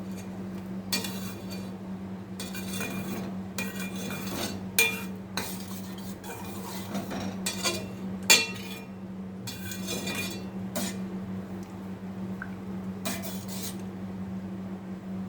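A metal spoon stirring in a cooking pot, clinking and scraping against its sides in a string of irregular strokes, as jaggery is stirred into the boiling kadha. A steady low hum runs underneath.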